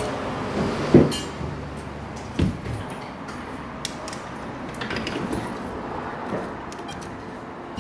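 Steady indoor arcade din, with two sharp knocks about one and two and a half seconds in.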